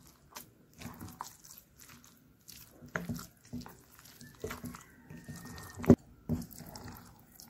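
A spoon stirring thick semolina batter with vegetables in a bowl: irregular wet squelching and scraping, with sharp clicks of the spoon against the bowl about three seconds in and again near six seconds.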